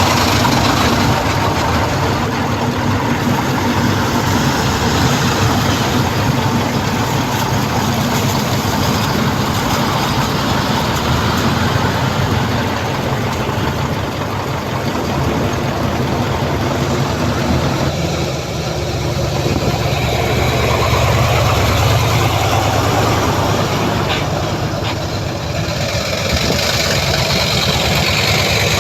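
Heavy diesel engine of earthmoving machinery running steadily, easing off briefly twice in the second half.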